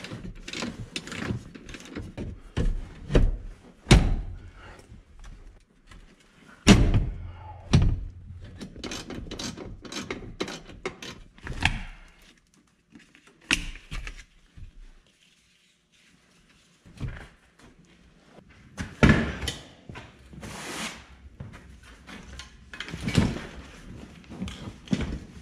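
Irregular knocks, clunks and rattles of a pickup truck seat's bare steel frame and springs being handled and shifted, with several loud thunks and a short quiet stretch midway.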